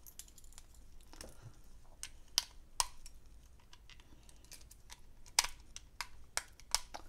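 Irregular sharp plastic clicks and taps, about a dozen, from a small ring light's battery cover being worked at and pried, which stays stuck shut.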